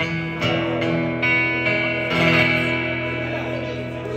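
Acoustic guitar strummed in the closing chords of a slow ballad: three strums about a second apart, the last chord left to ring and fade.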